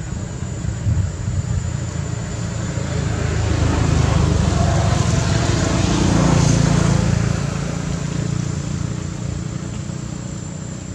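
A motor vehicle passing close by, its engine swelling about three seconds in and fading after about seven seconds, over a steady low rumble.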